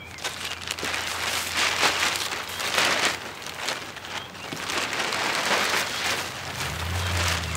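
A large sheet of clear plastic sheeting crinkling and rustling in repeated swells as it is lifted, dragged and folded in, with dry arugula seed pods and chaff lying on it.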